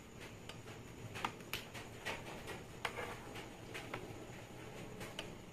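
Irregular light clicks and taps on a hard floor from kittens playing with a dangled charging cable: paws, claws and the plug end striking the floor, with a couple of sharper clicks.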